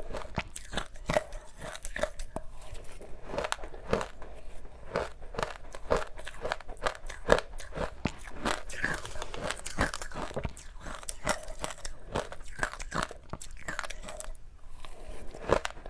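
Close-miked biting and chewing of powdery matcha-dusted ice: a dense run of soft, crisp crunches, with a brief pause near the end.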